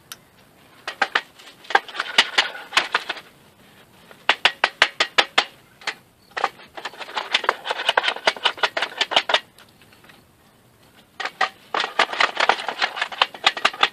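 Hand tools working screws and nails out of a salvaged wooden board: four runs of quick, sharp metallic taps and clicks, several a second, with short pauses between them.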